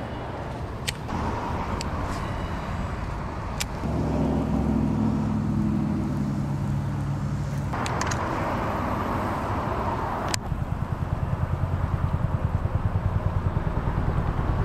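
A motor running with a low, steady drone, joined from about ten seconds in by a low pulsing of roughly five beats a second. A few sharp clicks come in the first seconds and once more about ten seconds in.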